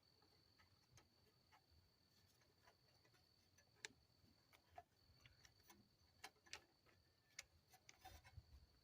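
Near silence with faint, irregular light clicks and taps of small metal parts being handled while a carburetor is fitted to a mower engine, over a faint steady high-pitched tone.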